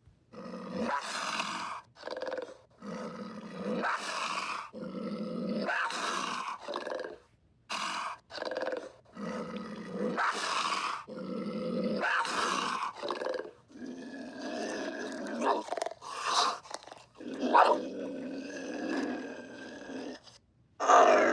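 Florida panther calling: a long run of harsh, rasping calls, each about half a second to a second long, separated by short breaks.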